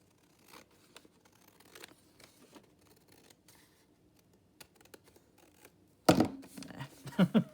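Scissors snipping and cutting through pianola roll paper in faint short strokes, then a sudden louder burst of paper handling and cutting noise about six seconds in.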